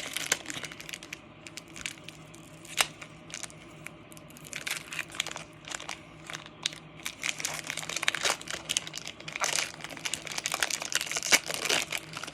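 Foil wrapper of a Pokémon Fusion Strike booster pack crinkling and crackling as it is torn open and the cards are pulled out. The crackles come irregularly and grow busier after about four seconds.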